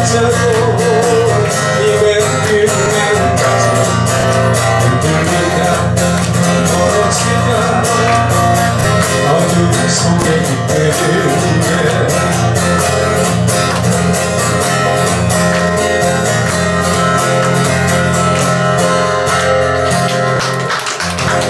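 Guitar music with sustained low notes, winding down shortly before the end.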